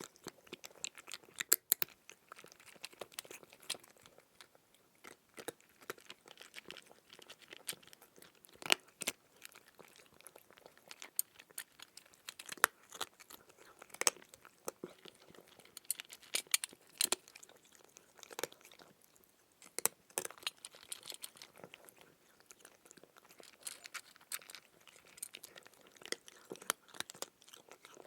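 Cat chewing food, with irregular crunches and bites at an uneven pace and short pauses between them.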